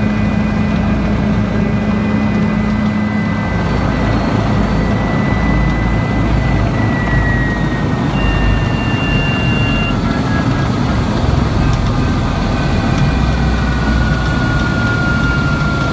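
Bell 407 helicopter's turboshaft engine and main rotor running loud and steady, heard from aboard, with a high turbine whine that slides slowly lower in the second half.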